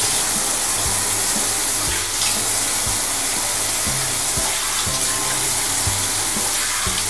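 Handheld shower head running steadily, its spray splashing onto the shower floor and a person's legs.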